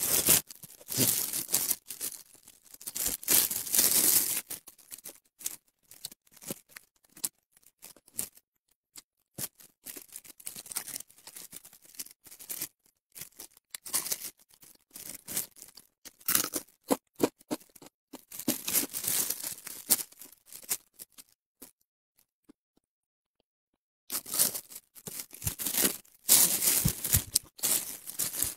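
Close-up eating sounds of spicy crisp-skinned fish: crackly crunching bites and the flesh being torn off the bones by gloved hands, in irregular bursts with pauses. About three quarters of the way through there are about two seconds of silence.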